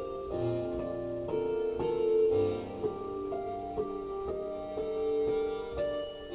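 Beat being played back in a production session: a slow keyboard-like melody of held notes, with two low bass hits about two seconds apart.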